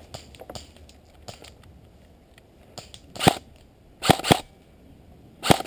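Airsoft rifle shots: a few short, sharp bursts of fire in the second half, with faint crackling of undergrowth before them.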